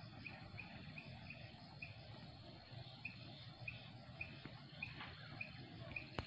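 Faint hillside ambience: a short, high chirp repeats about three times a second, pausing briefly about two seconds in, over a faint steady high insect hum. A single click near the end.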